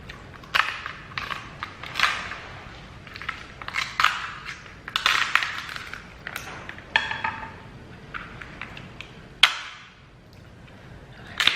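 Close-miked eating of a seafood boil of king crab legs, shrimp and corn: irregular cracks and crunches with wet chewing and smacking.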